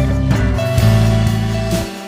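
Background music with guitar and a strong bass line.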